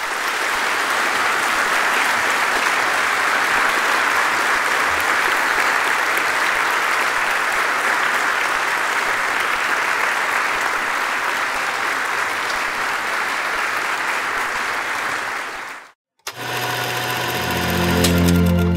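A large audience applauding steadily. The clapping cuts off suddenly about sixteen seconds in, and a short music sting begins near the end.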